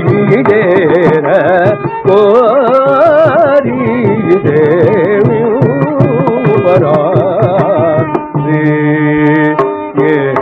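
Carnatic classical music in raga Kharaharapriya: a male voice sings with the pitch shaking and sliding around each note, over drum strokes. Near the end it settles into steadier held notes.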